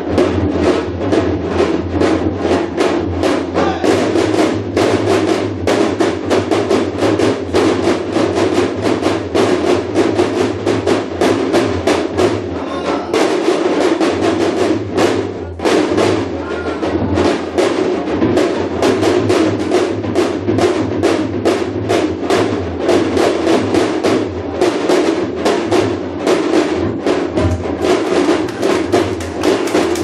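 Korean janggu (hourglass drum) played in a fast, dense, steady rhythm of sharp strokes, in the style of Korean shamanic (mu-ga) drumming.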